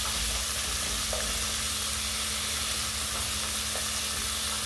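Strips of filet mignon sizzling steadily in hot margarine in a pan, with occasional light scrapes of a spatula turning them.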